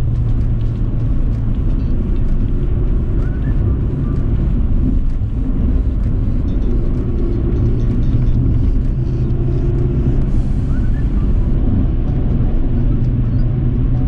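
Inside the cabin of a Nissan Sentra 1.6 while it is being driven: a steady low rumble of engine and road noise.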